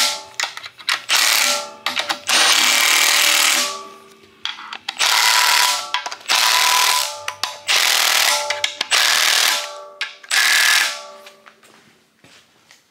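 Cordless impact wrench on an extension, run on its low-torque setting (about 20 ft-lb), hammering down oil pan bolts on an LS engine block in a series of short bursts, one bolt after another.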